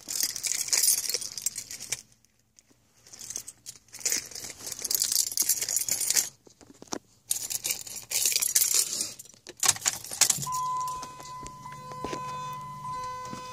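Keys jangling in three shaken bursts of about two to three seconds each. About ten seconds in, a steady electronic tone starts and holds.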